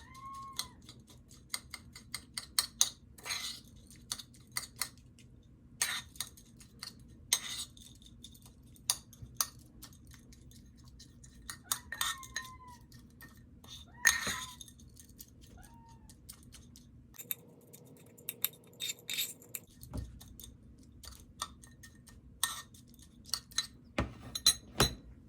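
Dishes and cutlery clinking and tapping again and again as cat food is readied, with three short cat meows: one at the start, one about halfway and one a few seconds later.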